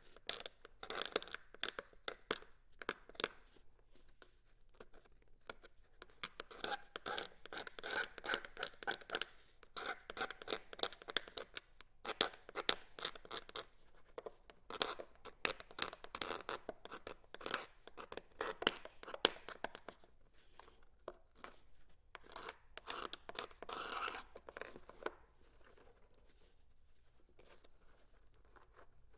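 Single-edge razor blade scraping along a bamboo fly rod section, stripping the old varnish in bursts of quick strokes, fading to faint near the end.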